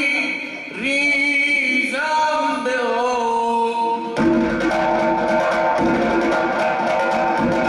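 A zurkhaneh morshed's solo chant, a single male voice sliding between held notes. About four seconds in, fast rhythmic drumming on the zarb, a goblet drum, starts up under the voice, setting the beat for the club swinging.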